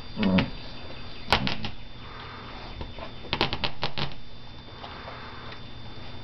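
Basset hound chewing a green squeaky toy: one short squeak near the start, then quick runs of sharp clicks from teeth working the toy, about a second in and again around three to four seconds in.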